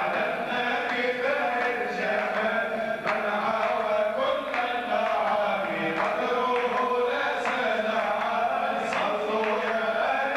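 A group of men chanting an Arabic religious song together in unison, sung into microphones, with a few sharp hand claps keeping time.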